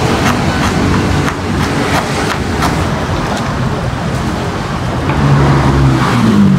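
A kitchen knife chopping shallots and chilies on a plastic cutting board, a run of sharp taps about three a second, over steady road-traffic noise. The traffic's engine rumble grows louder near the end.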